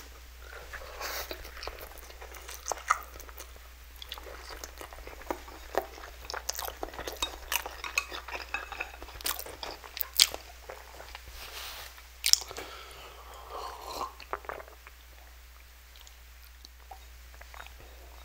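Close-miked eating sounds: wet chewing of spicy instant noodles, with many small mouth clicks and a few sharper, louder clicks, growing quieter near the end.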